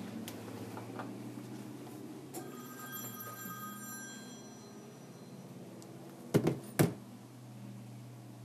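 A light tap sets off a bell-like ringing that fades after about a second and a half, then two sharp clicks about half a second apart, over a steady low hum.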